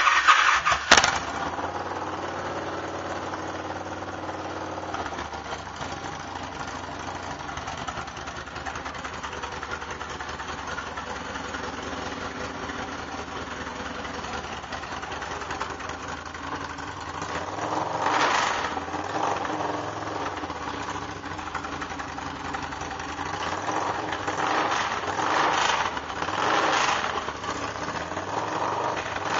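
Victory Vegas V-twin engine running on straight pipes with no mufflers: it fires up loudly at the start, settles into a steady idle, and is revved briefly about two-thirds of the way in and a few more times near the end.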